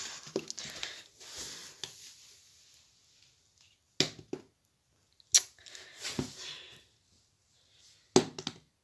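Rustling and handling noise broken by three short sharp knocks, about four seconds in, just after five seconds and near the end: a small plastic object being flipped and knocking down on the floor.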